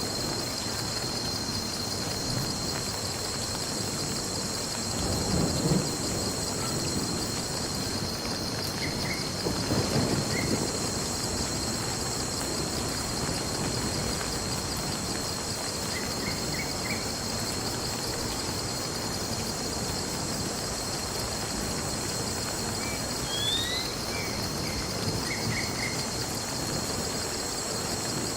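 Steady rain with two low rolls of thunder, about five and ten seconds in, over a constant high trill, with a few short chirps scattered through.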